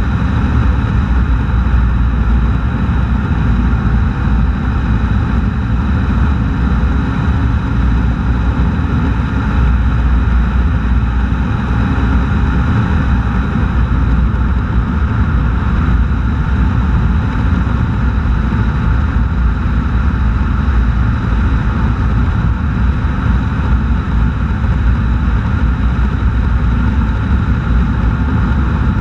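Steady wind and road rumble heard from a camera mounted low on the outside of a car cruising along a highway, with a heavy low rumble and no change in pace.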